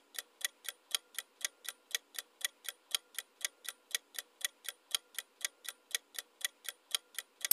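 Ticking-clock countdown timer sound effect: a steady run of sharp ticks, about four a second.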